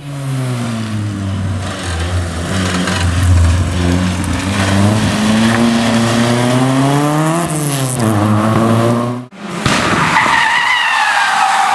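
Rally car engine working hard through a tight bend, its pitch rising and falling with throttle and gear changes. After an abrupt cut about nine seconds in, a wavering high tyre squeal joins the engine as a car takes another corner.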